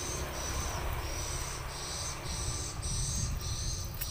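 An insect calling in a steady run of high buzzing pulses, about two a second, each with a thin high whine, over a low rumbling noise.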